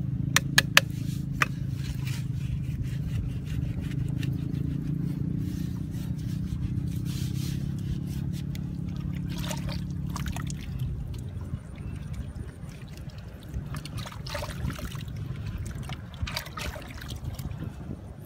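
Hands packing and smoothing wet mud around bamboo tubes, making wet scraping and squelching sounds, with a few sharp knocks of bamboo near the start. A steady low hum runs underneath and fades about eleven seconds in.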